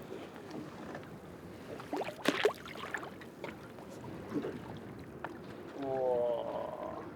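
Handling noises on the deck of a small fishing boat at anchor: a few sharp knocks about two seconds in over a steady background hiss, then a short voiced sound near the end.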